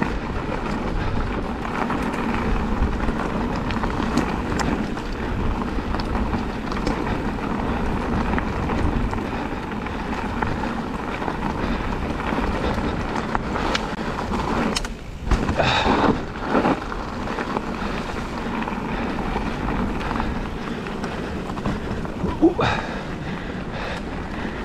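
Specialized Turbo Levo e-mountain bike riding a forest trail: steady tyre rumble on dirt and bike rattle, with wind buffeting the microphone. A cluster of sharper knocks and clatters comes about two-thirds of the way through, and another near the end.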